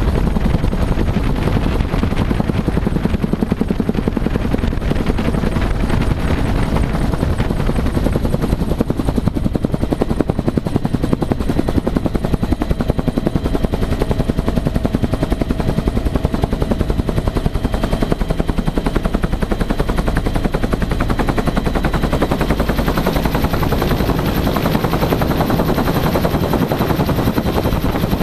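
Bell UH-1 Huey helicopter in flight: the rapid, steady beating of its two-blade main rotor over the run of its turbine, heard from inside the open-doored cabin.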